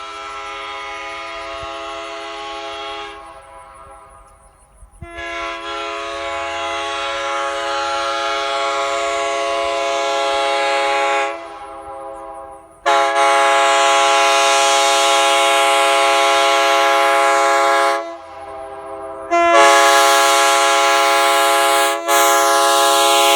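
Nathan Airchime K3HA three-chime locomotive air horn, a 1980s widefont casting with bells 1, 2 and 4A, sounding its steady chord in long blasts. The first blast dies away about three seconds in, and after a short silence the horn sounds again at length, dropping quieter twice before returning at full level.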